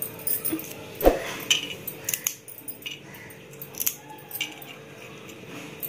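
Light clicks and taps of whole spices being dropped and moved by hand on a dry flat griddle, with one sharper knock about a second in, over a faint steady hum.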